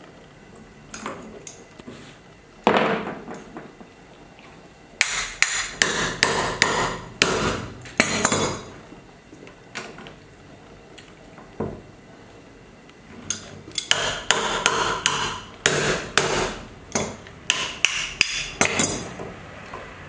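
Hard, sharp knocks struck in quick runs: a few single blows, then two rapid series of roughly ten strikes each, a few seconds apart.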